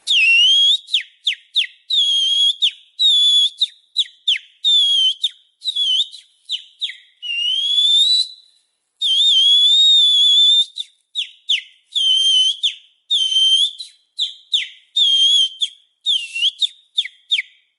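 High, shrill whistling: long wavering held notes broken up by many quick downward-sliding chirps, with a short pause about eight seconds in.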